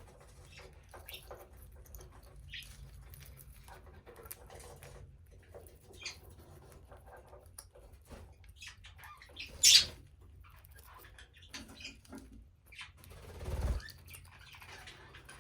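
Budgies pecking and nibbling at greens: a steady stream of soft small clicks and rustles. One short, sharp, loud sound stands out about ten seconds in.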